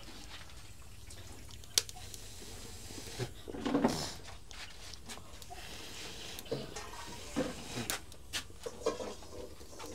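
Faint steady hiss with a sharp click about two seconds in, then scattered small clicks and knocks of cooking utensils being worked in a pot.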